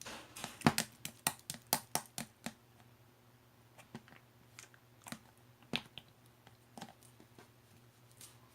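A rapid run of about a dozen sharp clicks in the first two and a half seconds, then scattered single clicks.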